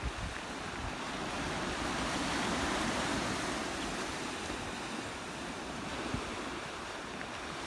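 Small waves breaking and washing up a sand and shingle shore: a steady sea wash that swells a little a couple of seconds in and then eases. Some wind rumbles on the microphone underneath.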